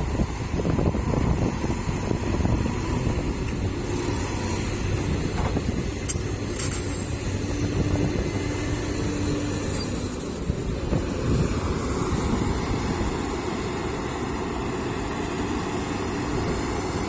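Diesel engine of heavy earthmoving machinery running steadily at a worksite where soil is loaded into a dump truck, with a couple of sharp knocks about six seconds in.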